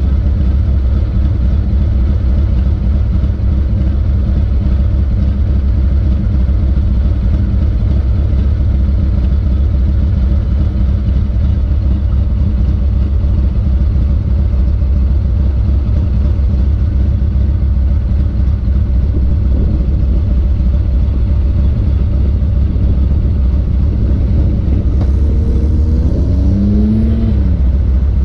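Harley-Davidson FXRT's V-twin engine idling steadily while the motorcycle waits at a traffic light. Near the end a short wavering whine rises and falls over the idle.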